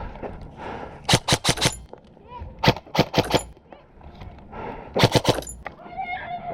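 Airsoft gun firing three quick bursts of four or five sharp shots each, about a second in, near the middle and about five seconds in.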